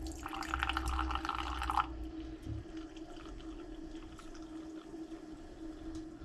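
Drip-brewed coffee poured from a glass carafe into a wine glass: a splashing pour for the first couple of seconds, then a softer, quieter trickle as the glass fills.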